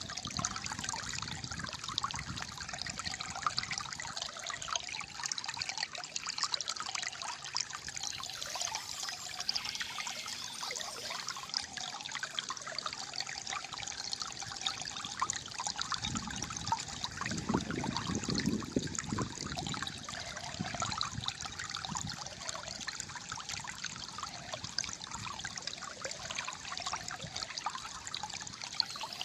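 Shallow stream water trickling and gurgling steadily, with a deeper gurgle swelling for a few seconds past the middle.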